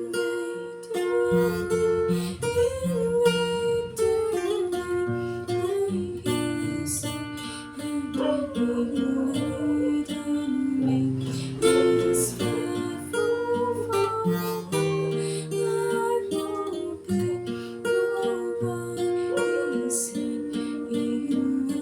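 Acoustic guitar playing a song, with a sung melody carried over it.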